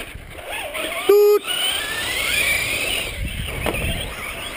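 Radio-controlled short-course truck's motor whining, rising and falling in pitch as it drives, with rough tyre-on-dirt noise in the second half.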